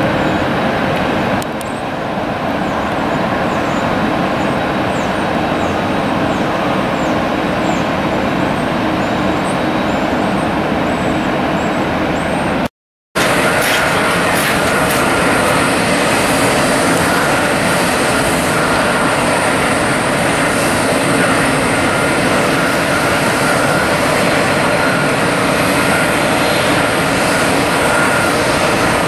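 Airliner jet engines running on the ground, a steady roar with a high whine over it. The sound drops out for a moment about 13 s in, then carries on a little louder, with the whine clearer.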